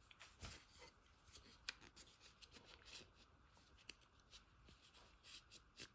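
Faint soft rubbing and scattered light clicks, near silence: cotton patches wiping degreaser and old grease off the disassembled GSG Firefly pistol's parts.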